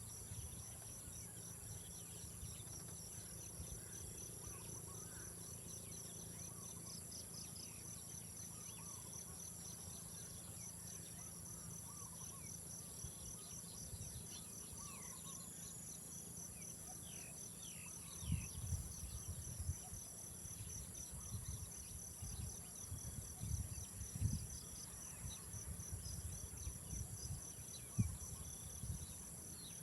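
A chorus of insects, crickets among them, trilling steadily, with one high call pulsing in a rapid even rhythm throughout. From a little past halfway, irregular low thumps and rumbles come in.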